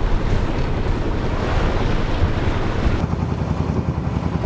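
Wind buffeting the microphone and water rushing past the hull of a sailboat under way. After a sudden change about three seconds in, this gives way to a steadier low rumble with a fast, even pulse.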